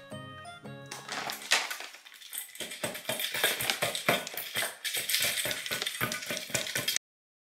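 Music at first, then a Shiba Inu eating dry kibble from a stainless steel bowl: a fast, dense run of crunches and clicks. It cuts off suddenly about half a second before the end.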